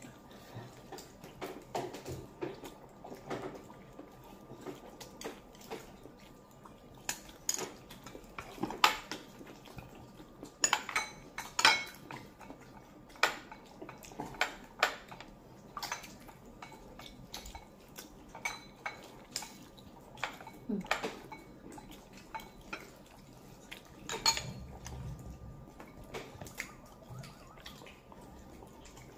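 Tableware clinking during a meal: utensils tapping and scraping against bowls and plates in irregular light clinks, a few of them louder.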